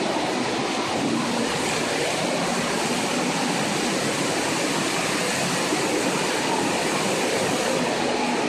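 Fountain water jets spraying and splashing back into the basin: a steady rush of water.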